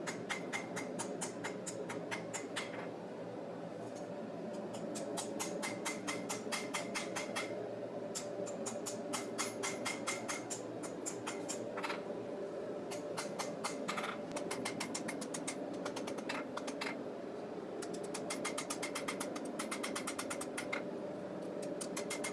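Hammer blows on hot steel at the anvil while a knife blade's heel is forged, struck rapidly in runs of several blows a second with a metallic ring, over a steady low hum.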